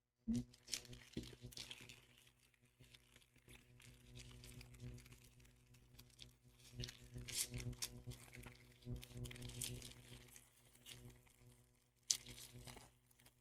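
Foil wrapper of a Pokémon card booster pack being torn open and crinkled: faint, irregular crackling and rustling, sharpest just after the start and again near the end.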